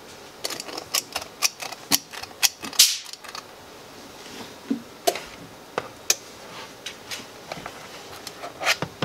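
Metal cookie scoop clicking and tapping against the mixing bowl and the foil-lined baking pan as dough is scooped out and dropped. A quick run of sharp clicks in the first three seconds, then a few scattered ones.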